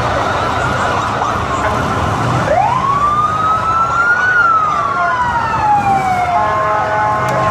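A police siren sounds one wail over crowd noise: it rises sharply about two and a half seconds in, then falls slowly, and gives way to a steady horn-like tone near the end.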